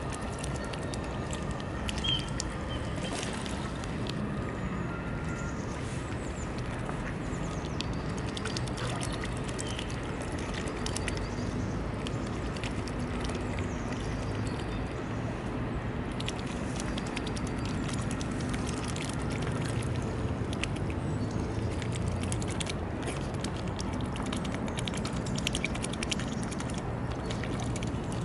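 Mute swans and mallards dabbling at the water surface for floating pellets: scattered soft clicks and slurps of bills in the water over a steady low rumble.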